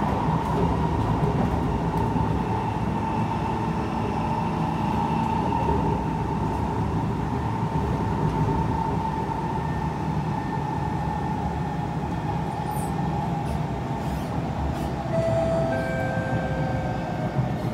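Kawasaki C151 electric train in motion, heard from inside a car: a steady low rumble of wheels on rail under a whine from the traction motors that sinks slightly in pitch. A few new steady tones come in near the end.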